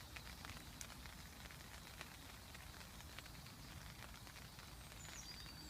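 Light rain falling on the flysheet of a Eurohike Cairns 2 dome tent, heard from inside as faint, scattered ticks of single drops.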